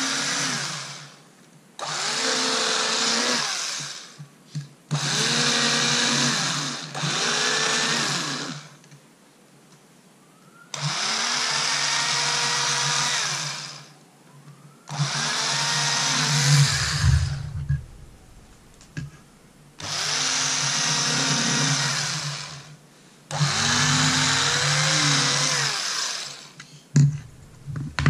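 A small electric tool motor run in about eight short bursts of two to three seconds, with brief pauses between. Each burst spins up and winds down in pitch.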